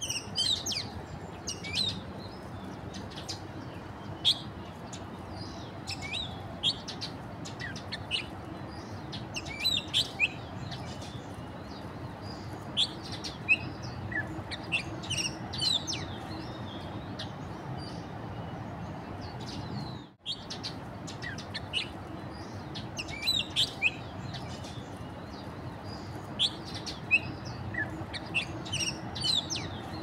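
Asian glossy starlings giving short, sharp, high chirps in scattered clusters, over a steady low background noise.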